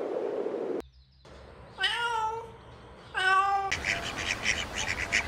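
A cat meows twice, two drawn-out meows about a second apart. About a second before the end, a flock of waterfowl starts up a rapid, rasping run of quacking calls.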